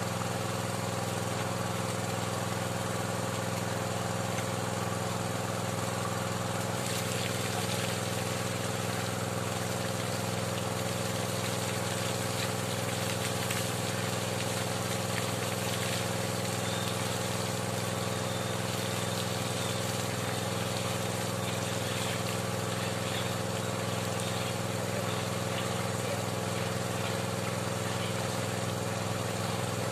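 Small engine-driven water pump running steadily, pushing water down the drill pipe during hand-turned bore-well drilling, with muddy water splashing and trickling out around the pipe.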